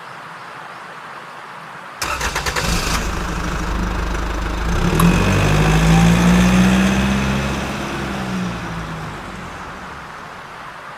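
An engine starts with a rapid clatter about two seconds in, then runs with a rising and falling note that grows louder and fades away over several seconds.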